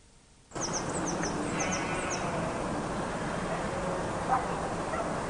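Outdoor woodland ambience that cuts in suddenly about half a second in: a steady rushing noise, with several small birds giving short, high, falling chirps over the next second and a half, and a single short knock about four seconds in.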